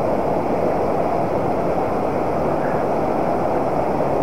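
Steady rushing of a fast-flowing river, with white water spilling over a low weir.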